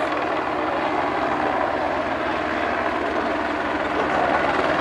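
Light helicopter flying past at low altitude, its rotor and engine running loud and steady with a fast rotor chop in the low end, growing a little louder near the end.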